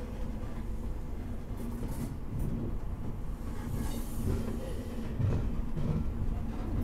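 CrossCountry HST (InterCity 125) train running on the track: a steady low rumble with a faint hum.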